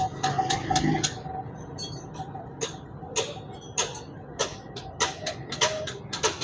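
Sharp metallic clicks and clinks, irregular at about one or two a second, of hand tools working on a motorcycle's front sprocket.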